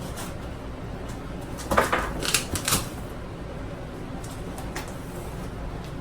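Cardboard shipping box and its packing being handled and opened: a quick cluster of scraping, crackling knocks about two seconds in, over a low steady background.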